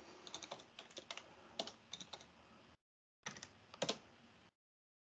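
Faint typing on a computer keyboard: a quick run of key clicks over the first two seconds, then a few more about three and a half seconds in, one of them louder than the rest.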